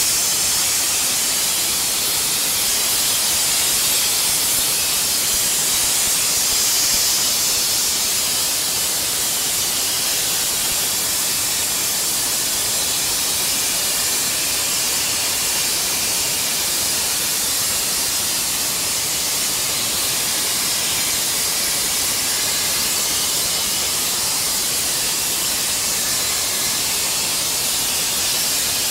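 Pressure-washer lance spraying a high-pressure water jet against a boat's hull, a steady loud hiss that does not let up, stripping flaking paint from the bottom.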